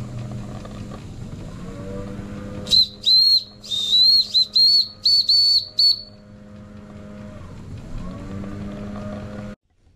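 Steam whistle on a Wilesco D21 toy steam engine's boiler, blown in a quick run of about eight short, high-pitched toots, over the steady hum of the running engine. The sound cuts off abruptly just before the end.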